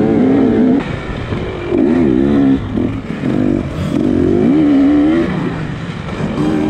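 Dirt bike engine revving up and down as the throttle is worked on a wooded singletrack, with about four surges in pitch, each about a second long.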